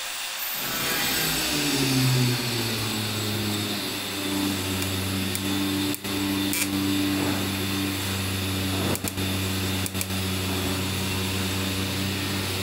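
Steady machine hum: a low drone with several even tones above it, sagging in pitch during the first couple of seconds and then holding steady. The sound cuts out for an instant a few times in the second half.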